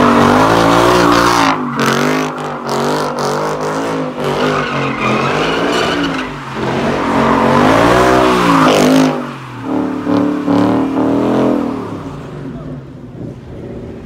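Ford Mustang doing donuts, its engine revving up and down in repeated waves with the tyres spinning and squealing; the revs drop and it grows quieter near the end.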